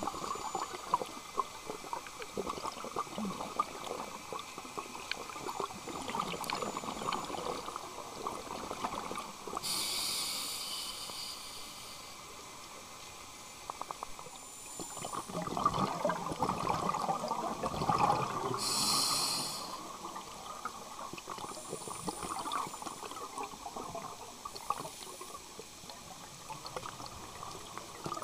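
Underwater sound picked up by a camera in its housing on a coral reef: a steady crackle and bubbling water noise, with two brief hisses, one about ten seconds in and one a little before twenty seconds.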